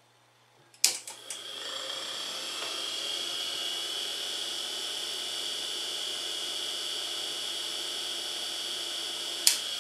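Washing machine motor with a chain sprocket on its shaft, starting with a click about a second in, spinning up within a second to a steady high whine and running at speed, with another sharp click near the end.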